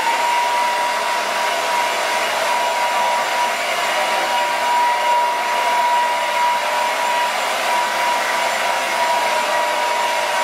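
Handheld hair dryer running steadily, a rush of air with a steady whine from its motor, drying a freshly applied coat of leather colour.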